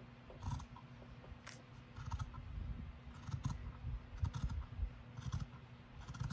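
Scissors cutting through a black ribbed knit sock: a series of irregular short snips as the blades close through the fabric.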